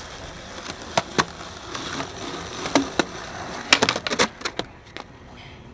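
Skateboard on a concrete ledge: sharp clacks of the board's tail and wheels striking the ledge and pavement over rolling noise, with a quick run of clacks about four seconds in.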